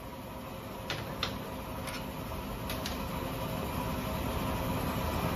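A few light metal clicks and knocks, about a second in and again two to three seconds in, as the scooter's exhaust and tools are handled, over a steady mechanical hum that slowly grows louder.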